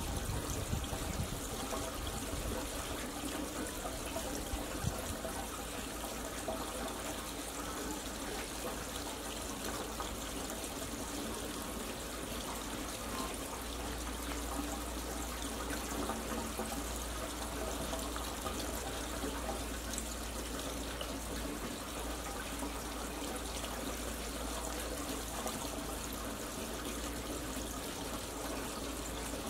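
Steady rushing noise like trickling water, with a low rumble that grows louder about halfway through.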